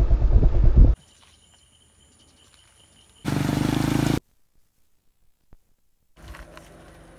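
Short cut-together sounds. First a loud low rumble for about a second. About three seconds in, a motorcycle engine runs for about a second as it pushes through floodwater, with water splashing, and then cuts off suddenly.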